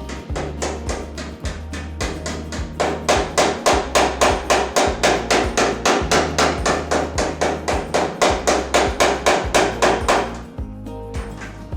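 Rapid, even hammer blows on sheet steel body panelling, about four a second, dropping off shortly before the end, with background music underneath.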